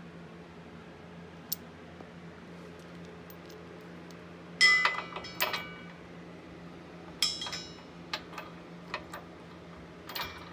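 Steel hitch hardware clinking: a washer and nut knocking against the bolt and the truck's steel frame as they are fitted by hand. Two clusters of sharp, ringing clinks come a little before halfway and about two-thirds through, followed by a few lighter ticks.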